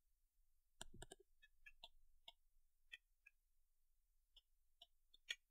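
Near silence with faint, scattered computer mouse clicks: a short cluster about a second in, then single clicks every half second or so, the loudest near the end.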